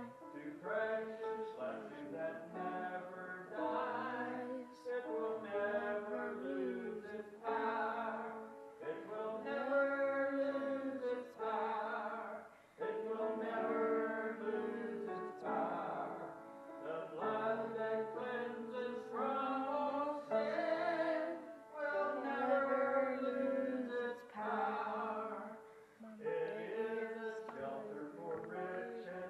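Congregation of men and women singing a hymn together, in phrases of held notes with short breaks between them.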